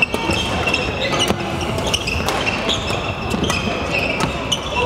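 Badminton rackets striking shuttlecocks with sharp cracks at irregular moments, and court shoes squeaking briefly on the hall floor, over a steady din of a busy sports hall.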